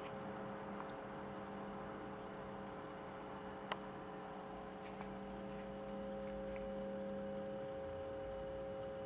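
J.C. Penney Pinto CB radio giving a steady hum from its speaker, which the owner takes for AC mains hum. It appears when the set runs on its AC adapter and goes away on DC. A sharp click sounds once just before the middle, and a fainter one follows about a second later.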